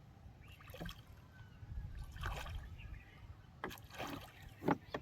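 Water splashing and sloshing in irregular bursts, about five sudden splashes over a low steady rumble, the sharpest near the end.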